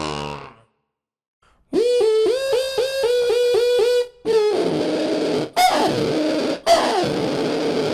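A beatboxer's vocal sound effects: a pitched warbling tone pulsing about four times a second, then a buzzing tone broken by three sharp clicks, each with a quick falling zap.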